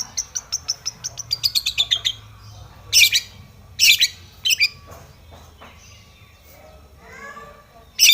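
Long-tailed shrike calling: a rapid run of sharp chips that speeds up and drops a little in pitch over the first two seconds, then several loud, harsh calls with some fainter warbling between. This is the agitated song used as a provocation recording to make other shrikes answer.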